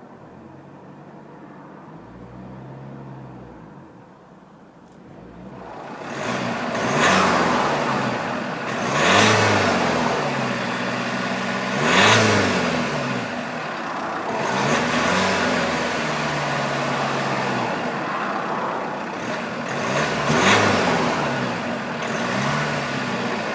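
2013 Vauxhall Cascada engine idling, then revved repeatedly from about six seconds in: five or six throttle blips, each rising in pitch and falling back to idle.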